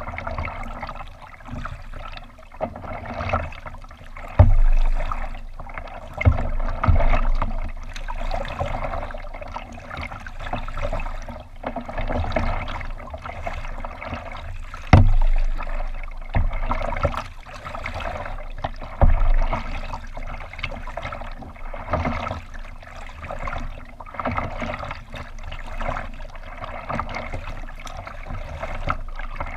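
Water lapping and gurgling against a kayak's hull as it is paddled, with a few sudden, loud low thumps.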